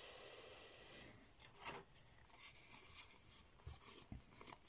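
Faint rubbing and soft clicks of trading cards being handled, slid apart and fanned out in the hands.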